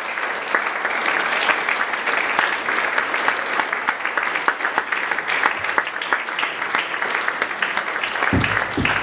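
Audience applauding, a steady dense clapping with a couple of low thumps near the end.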